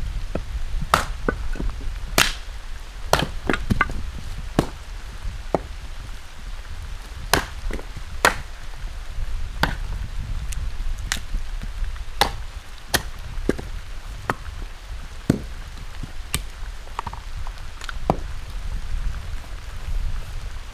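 Sharp chopping knocks at irregular intervals, roughly one a second, over a steady low rumble.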